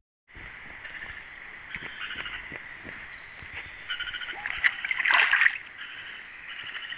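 Riverside night ambience: a steady rush of flowing stream water, with insects chirping in short pulsed trains and a louder chirping burst about five seconds in.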